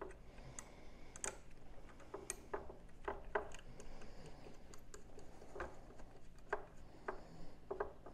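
Scattered light clicks and taps of hand tools and metal parts being handled while handlebars are fitted to a motorcycle's bar mount, irregular and without a steady rhythm.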